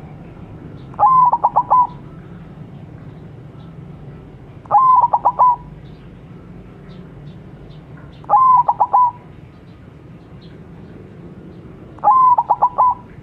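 White zebra dove (perkutut) singing: four song phrases about three and a half seconds apart, each a held coo followed by a quick run of four or five stuttered notes. A steady low hum and faint small-bird chirps sit underneath.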